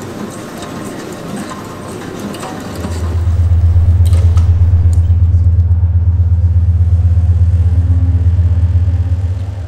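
A busy metallic clatter gives way, about three seconds in, to a very loud deep low-frequency drone from a sound installation's loudspeakers. The drone is steady with a rapid flutter and fades near the end.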